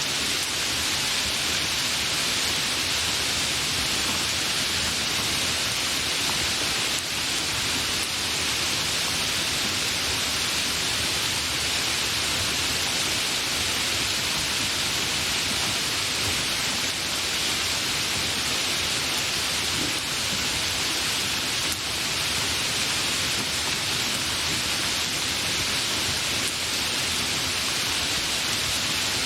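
Steady, fairly heavy rain falling without thunder, a continuous even hiss.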